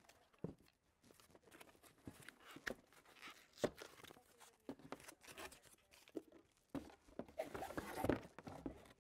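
Cardboard box and packaging rustling and scraping as stroller wheels are handled and lifted out, with scattered light knocks; the busiest rustling comes near the end.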